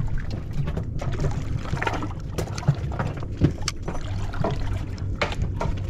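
On a fishing boat: a steady low engine hum under irregular water sloshing and splashing, with scattered knocks and clicks.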